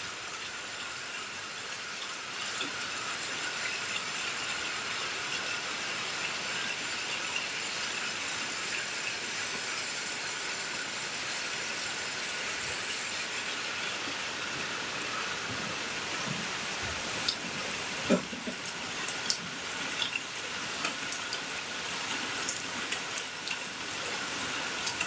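Steady rain falling on a river's surface and the foliage along the bank, an even hiss of drops. Scattered sharper ticks come in over the second half.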